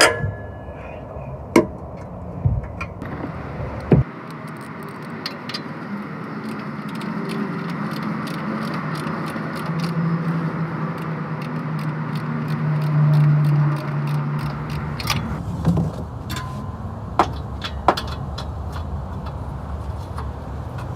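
Hand tools working exhaust bolts: a run of quick metallic clicks and clinks from wrench and ratchet on metal. A low hum swells in the middle and stops abruptly about two-thirds of the way through.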